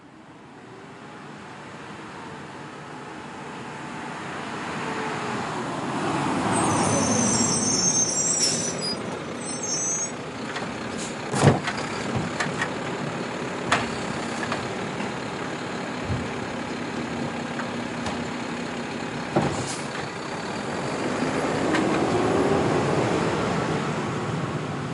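Garbage truck's engine growing louder as it pulls up, with a high air-brake hiss and squeal about seven seconds in. Several sharp metal clanks follow as the trash is picked up, and the engine swells again near the end.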